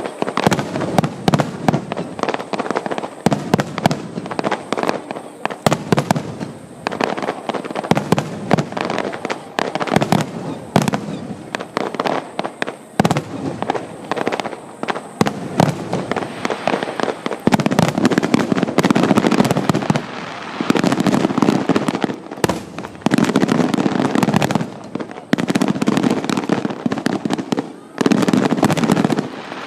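Aerial fireworks bursting in rapid, almost unbroken succession, a dense run of booms and crackling.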